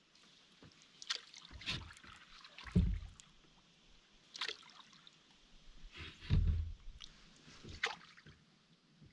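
Water splashing and dripping around a small fishing boat, with two heavier low knocks against the hull, about three and about six seconds in.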